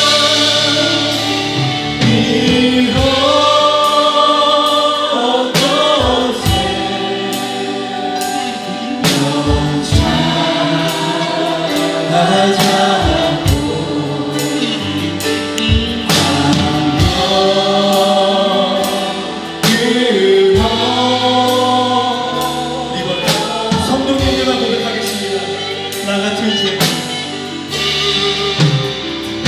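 Live church worship music: several voices singing a Korean praise song together over a band, with a regular beat.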